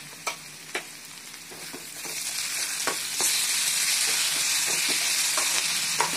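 Chopped onions, dried red chillies and ginger-garlic paste sizzling in oil in a kadai while a spatula stirs them, with scattered clicks of the spatula against the pan. The sizzle grows louder about two to three seconds in. This is the stage of frying the ginger-garlic paste until its raw smell is gone.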